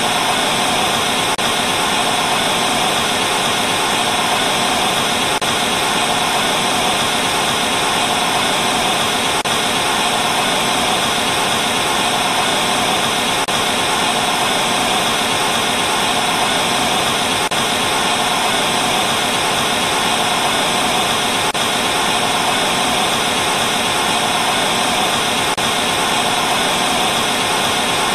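Television static from a set tuned to no signal: a steady, even hiss with no breaks, sharpest in the upper middle of the range.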